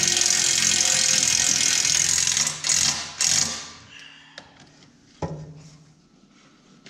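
Handheld grinder running and grinding metal along the snowmobile's steel belly pan: loud and steady for about two and a half seconds, then two short bursts of grinding before it winds down. A single thump follows about five seconds in.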